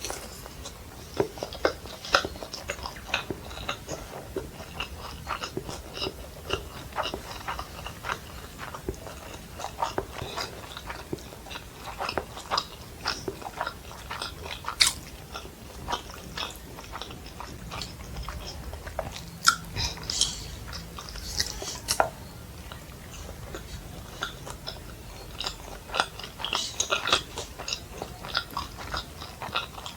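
Close-miked chewing and biting of fried rice and Manchurian: a steady run of irregular wet smacks and crunchy clicks from the mouth, a few sharper ones standing out.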